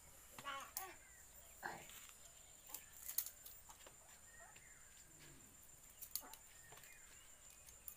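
Faint, scattered clicks and taps of dry firewood sticks being handled and laid into a mud stove, the sharpest about three seconds in. Faint animal calls can be heard in the background, mostly in the first two seconds.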